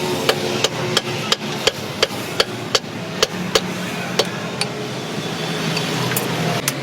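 Regular sharp taps, about three a second, over a low steady hum.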